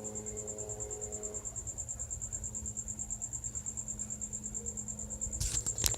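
A cricket chirping steadily, a high pulsing trill of about ten pulses a second, over a low steady hum. Near the end come a few sharp knocks.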